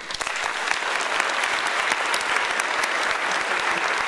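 Audience applauding, many hands clapping at once; it swells in about half a second and then holds steady.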